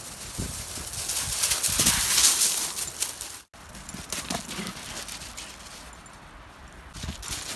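Footsteps crunching on pebble shingle, a dense crackle of stones shifting underfoot, loudest in the first half. It cuts out for an instant near the middle, then carries on more quietly.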